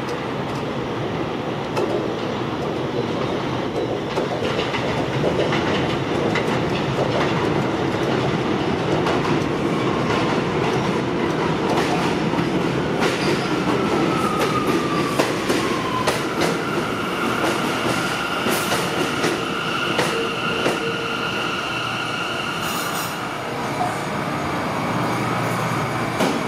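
R179 subway train pulling into an elevated station: a steady rumble with wheels clicking over the rail joints. About halfway through, a whine falls in pitch as the train slows, then a high steady squeal lasts for several seconds as it draws to a stop.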